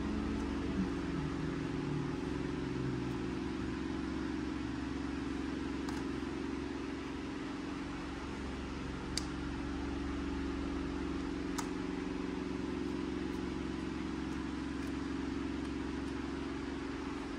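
Steady low hum like a fan running, with four light, sharp clicks of small plastic toy pieces handled by gloved fingers.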